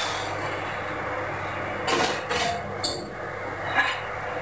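A steady background hum and hiss with a couple of short knocks and clatters, about two seconds in and near the end, as a glass baking dish is carried off and handled.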